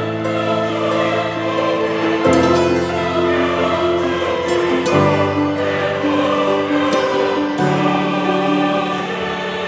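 Music: slow, sustained chords with a choir-like vocal sound, changing chord every two to three seconds.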